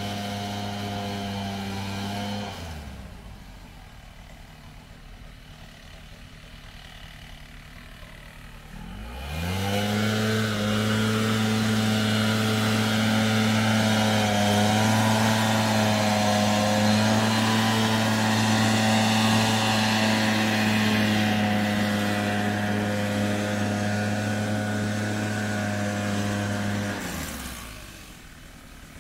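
Gas backpack leaf blower engine at high throttle, dropping to idle about two seconds in. It is throttled back up about nine seconds in with a rising pitch, holds a steady high whine with slight wavering, and drops back to idle near the end.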